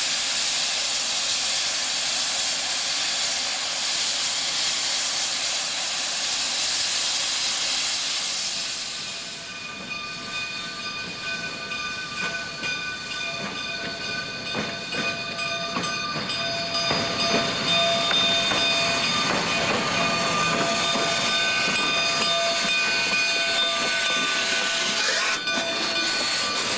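Narrow-gauge steam locomotives letting off steam while being readied for a run: a steady loud hiss. From about ten seconds in, several steady high whistling tones sound over the hiss.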